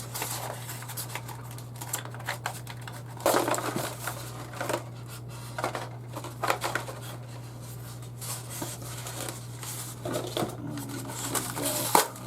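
Plastic packaging and small parts being handled during an unboxing: irregular rustling, crinkling and clicks, over a steady low hum.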